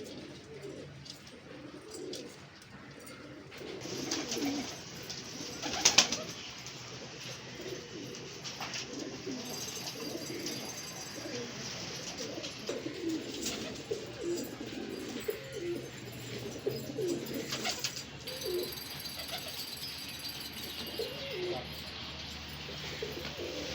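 Domestic pigeons cooing over and over throughout. A single sharp knock about six seconds in is the loudest sound.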